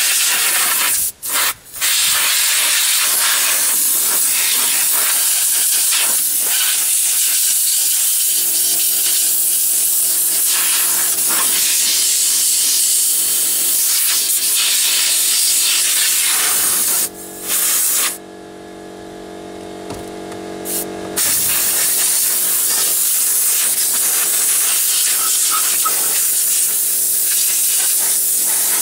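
Compressed air hissing loudly from a hand air blow gun blown into the dashboard around the instrument cluster, in long blasts with a brief stop about a second and a half in and a longer pause at about seventeen seconds. A low steady hum runs underneath from about eight seconds in and stops at about twenty-one seconds, when the hiss starts again.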